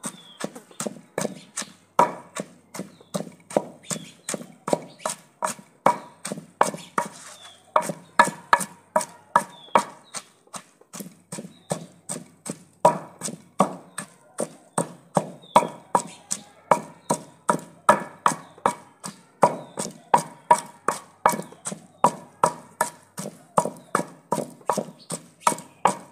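Wooden pestle pounding fresh mint leaves in a clay mortar: a steady rhythm of strikes, about two to three a second.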